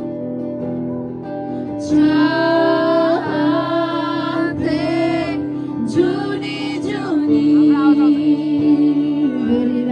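Singing with instrumental accompaniment: a voice comes in about two seconds in, holding long, wavering notes over steady held chords.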